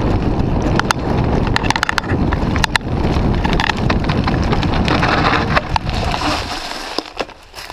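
Wind buffeting an action camera's microphone on a fast mountain bike descent over dirt singletrack, with scattered sharp clicks and rattles from the bike and gear over rough ground. The wind rumble fades away about six and a half seconds in as the bike slows.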